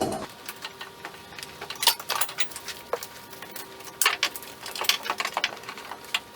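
Irregular clicks, knocks and rattles, some in quick runs, from hands working the knotted rope and handling the temporary fuel tank as it is freed from the go-kart frame.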